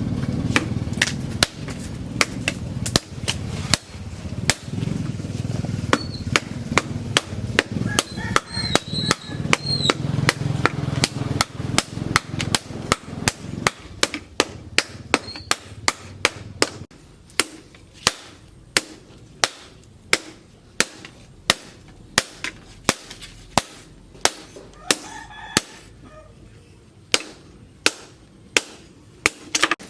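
Hand hammer striking steel on an anvil, a knife blade being forged from a tractor plough disc, about two sharp blows a second. A low steady hum underneath stops about halfway through.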